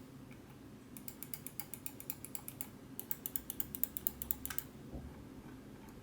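Side buttons of a HIPER Aero A-2 gaming mouse being pressed repeatedly, giving light, quick clicks. There are two rapid runs of clicks with a short pause between them. The buttons use Kailh switches.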